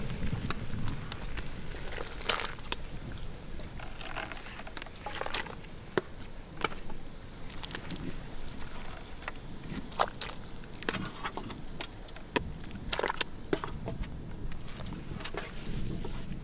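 An insect chirping steadily, one short high note about twice a second, with scattered sharp clicks and knocks over it.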